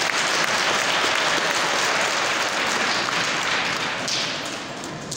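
A large congregation applauding, a dense patter of many hands clapping that dies away in the last second.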